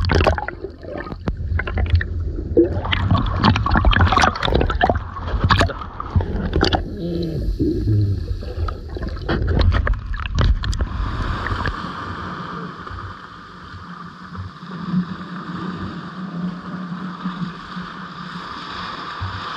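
Rough seawater splashing and sloshing right at the microphone while swimming in strong waves, with irregular knocks and rumbles. About eleven seconds in it settles into a steadier, muffled rushing.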